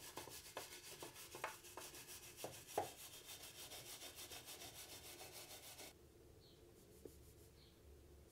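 Fast back-and-forth rubbing of a hand tool on the gilded edge of a wooden cross, about six strokes a second, with a few sharper knocks in the first three seconds. It stops abruptly about six seconds in.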